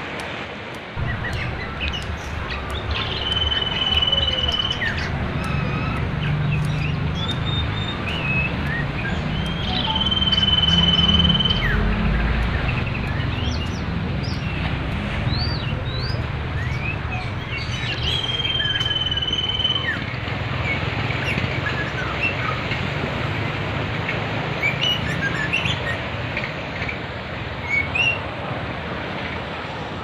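Rushing river water, a steady noisy roar with a low rumble, with songbird song layered over it: varied quick chirps and short rising whistles, and a long held whistle on one pitch three times.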